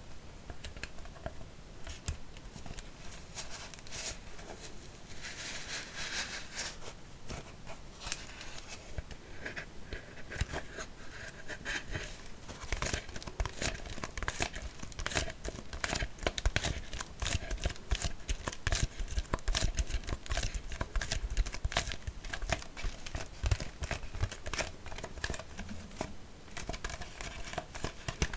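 Empty plastic kvass bottle crinkled and squeezed, then tapped and scratched in quick sharp clicks that grow busier from about halfway through.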